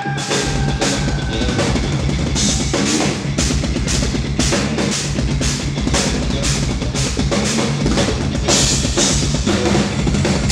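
Live instrumental progressive metal band: a drum kit with kick drum, snare and cymbal hits about twice a second over low, sustained eight-string guitar chords.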